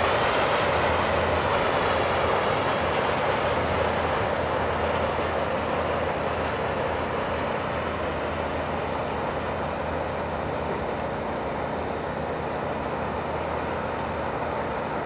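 Freight train's cars rolling away on the main line: a steady rumble of steel wheels on rail that slowly fades as the rear car draws off.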